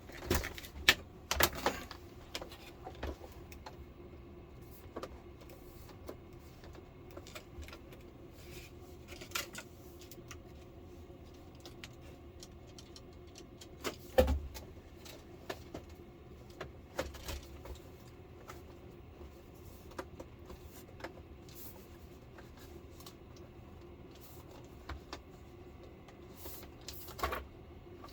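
Plastic TV bezel being pressed and snapped into place around an LCD panel: scattered sharp clicks and knocks, a few louder ones near the start, midway and near the end.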